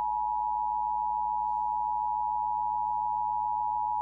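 Emergency Alert System attention signal: the steady two-tone electronic alert tone, held unbroken and unchanging, that announces an incoming emergency warning.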